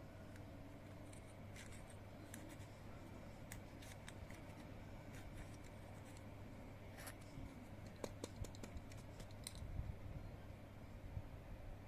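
Faint scraping and small metal clicks of a drill bit twisted by hand inside a Zippo insert's flint tube, grinding out flint that has hardened and jammed it. The clicks come more often in the second half, over a low steady hum.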